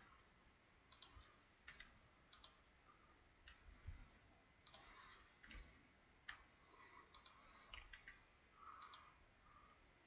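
Faint, irregular clicks of a computer mouse and keyboard, some coming in quick pairs.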